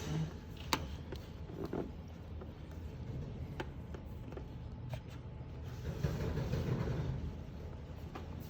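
Wind barrier panel being slid along its frame: a few light clicks and knocks, and a louder stretch of rubbing about six seconds in, over a steady low rumble.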